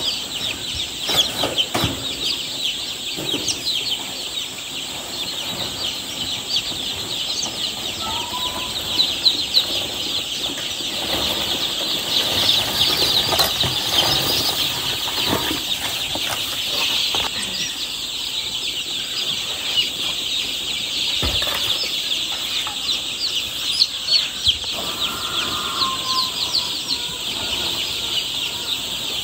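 A crowd of newly hatched chicks peeping without pause, a dense chorus of short, high cheeps, with a couple of lower calls now and then.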